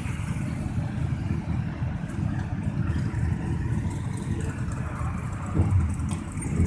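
Several motorcycle engines idling together, a low steady rumble that swells briefly near the end.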